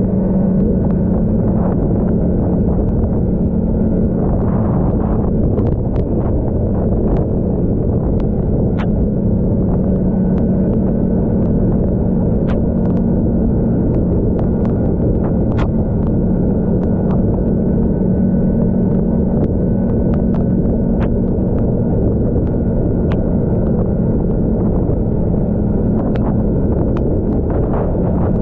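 Snowmobile engine running steadily at cruising speed, with a constant drone and a steady hum, and scattered sharp clicks over it.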